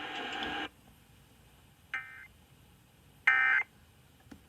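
Emergency Alert System end-of-message (EOM) data tones: two short bursts of buzzy digital data about a second and a half apart, the first fainter than the second, signalling the end of the alert. A hiss cuts off under a second in.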